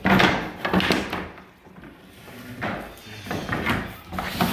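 White oak tongue-and-groove flooring planks being handled: boards knocking and sliding against each other and dragging over tar paper. The loudest clatter comes in the first second, with quieter scrapes and knocks later.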